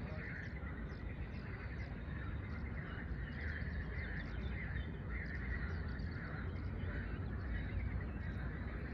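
Birds chirping over a chorus of frogs croaking, with the chorus swelling and fading about once a second. A low steady rumble runs underneath.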